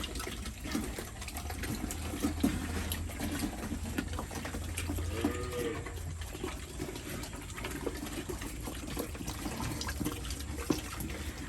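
Pigs eating wet mash from a trough, slurping and chomping steadily.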